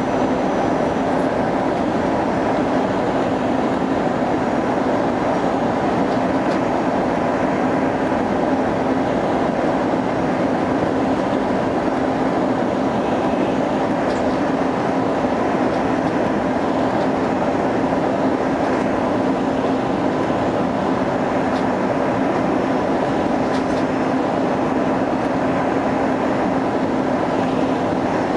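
Steady airliner cabin noise: an even roar of engines and rushing air, with a constant low hum and a fainter higher tone.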